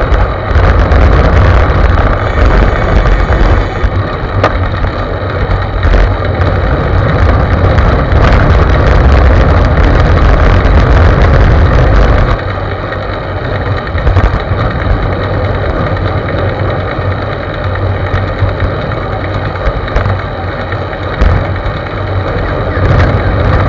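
Wind buffeting a bicycle-mounted camera's microphone at riding speed, a loud low rumble mixed with tyre and road noise. It eases noticeably a little past halfway.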